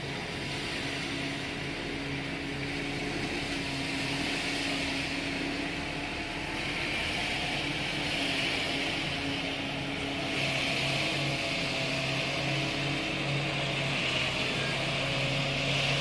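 Concrete mixer truck's diesel engine running steadily with a low hum, and a hiss over it that grows louder about halfway through.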